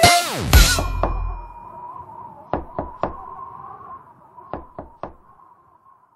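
A song's ending: a quick falling pitch sweep, then a faint lingering tone under two sets of three sharp knocks, the sets about a second and a half apart, a knocking effect within the track.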